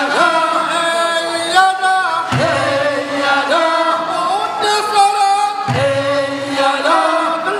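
A group of men chanting a traditional Korean fishermen's net-hauling work song, several voices singing together in long held notes.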